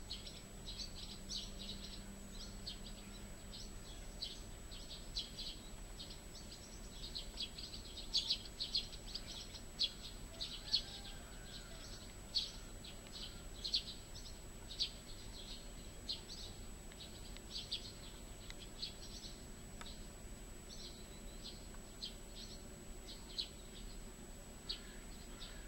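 Eurasian tree sparrows chirping: a continual, irregular stream of short high chirps, a few of them louder near the middle.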